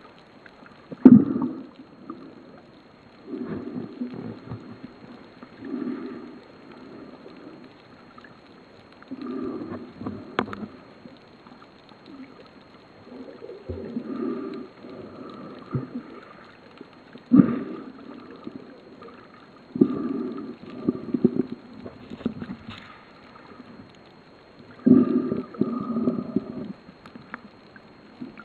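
Muffled underwater sound of a snorkeler breathing through a snorkel, a swell of noise every three to four seconds, with a few sharp knocks in between.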